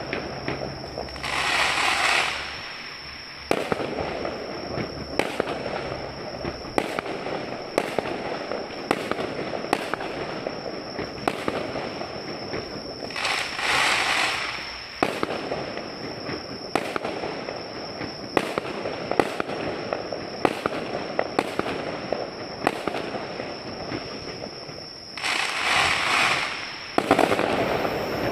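Aerial fireworks display going off: a steady run of bangs and crackles, several a second. Three louder hissing rushes about a second long come near the start, in the middle and near the end.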